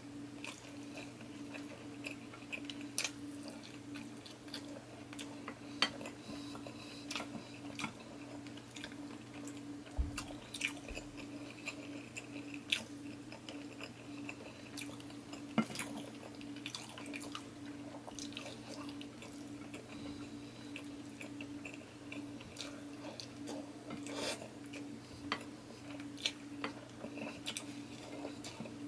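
Close-miked eating sounds: wet chewing and lip smacks, heard as scattered short clicks while rice and fried pork chop are eaten by hand. A steady low hum runs underneath.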